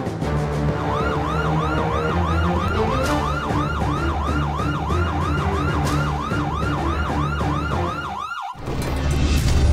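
Police siren in a fast up-and-down yelp, about three cycles a second, over background music. It cuts off abruptly near the end.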